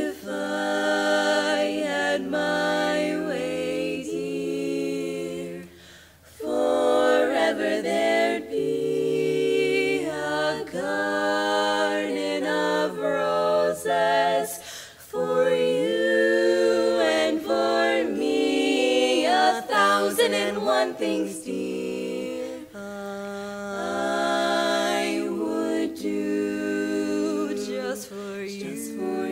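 Women's barbershop quartet singing a cappella in close four-part harmony, in phrases of held chords with short breaks about six seconds in and again about fifteen seconds in.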